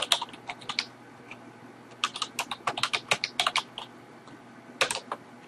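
Typing on a computer keyboard: a few scattered keystrokes, then a fast run of about a dozen from two seconds in, and a last couple of presses near the end.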